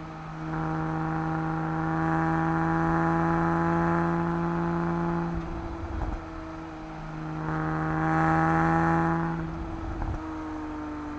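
Porsche 987.1 Cayman S's 3.4-litre flat-six engine pulling under throttle in two surges, the first about half a second in and the second around eight seconds, easing off between them. Its pitch falls near the end.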